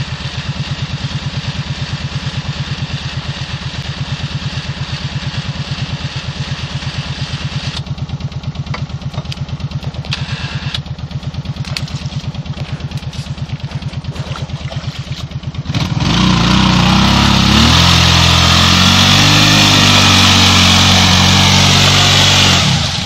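Kawasaki Brute Force ATV engine idling steadily with an even pulse, a few knocks and clatters over it midway; about two-thirds through it is suddenly revved hard and held high for several seconds as the quad pulls through the mud, then drops back near the end.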